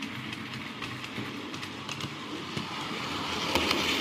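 Model train running on the layout's track: the motor and wheels make a steady running noise with scattered clicks over the rail joints. It gets louder near the end as the train comes up close and passes.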